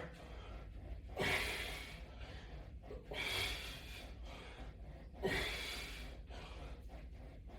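A man breathing hard, with three forceful exhales about two seconds apart, one with each pull on the resistance bands.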